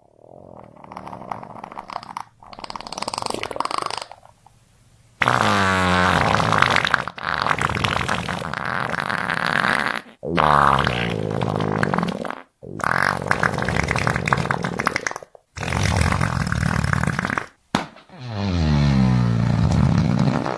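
A string of about seven fart sounds, cut one after another with short gaps. The first two are fainter. Several of the later ones are long, with a pitch that wavers and slides.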